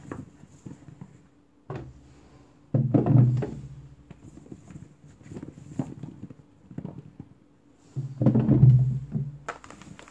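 Dried green plums (maesil) tumbling from a plastic basin into a clear plastic jar, thunking against the plastic with a low hollow ring. There are two loud bouts, about three seconds in and again about eight seconds in.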